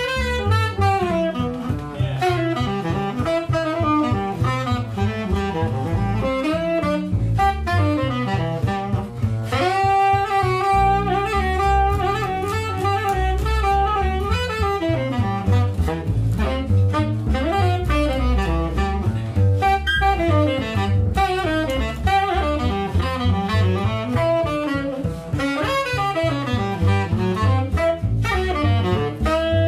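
Small jazz combo playing swing: a tenor saxophone carries the melodic line over acoustic bass, piano, guitar and drums. The saxophone holds one long note about ten seconds in.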